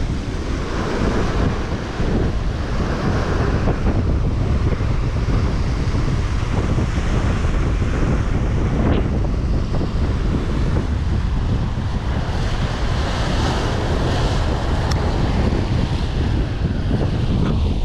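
Rough sea surf breaking and washing over rocks, in surges a few seconds apart, with heavy wind buffeting on the microphone.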